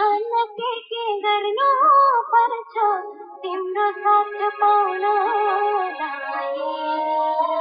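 A high-pitched voice singing a melody, holding and bending its notes, with short breaks between phrases.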